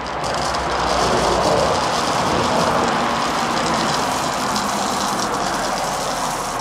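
Green coffee beans poured into a stainless steel mesh colander: a steady, dense rattle of many small hard beans hitting the mesh and each other, swelling over the first second.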